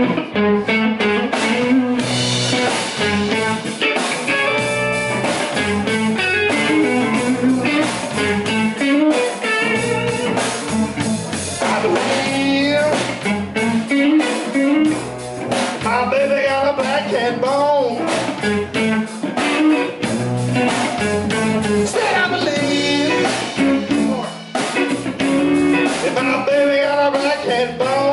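Live blues band playing: electric guitar with bending notes over electric bass and a drum kit.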